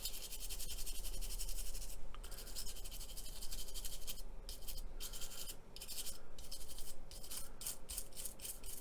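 Fine scratching of a tool scrubbing acrylic paint off a small plastic scale-model part over chipping fluid, in quick short strokes with brief pauses: the paint lifting away to give a chipped, worn look.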